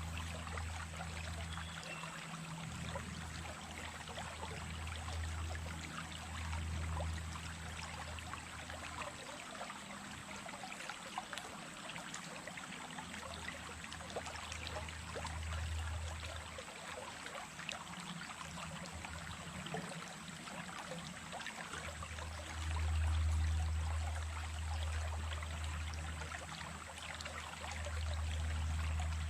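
Small stream running and trickling in a steady babble of small splashes, with a low rumble underneath that swells and fades several times.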